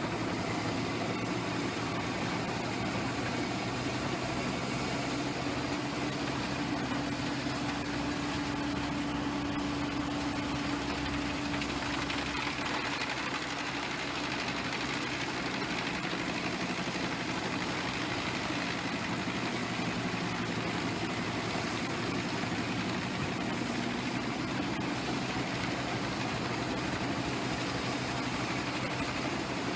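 Large wood-chipping machine with its heavy engine running steadily at a constant load.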